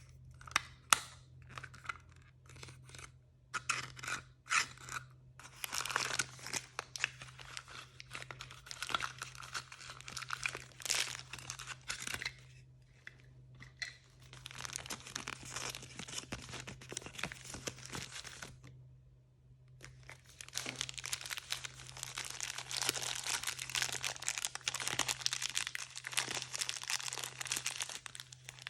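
Blind-bag packaging being handled and torn open. A few sharp crackles come first, then long stretches of dense crinkling and tearing, with a short pause about two-thirds of the way through. A faint steady low hum runs underneath.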